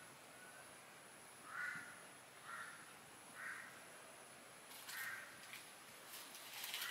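A crow cawing, five short caws roughly a second apart, over a faint steady high-pitched whine. A few sharp crackles come near the end.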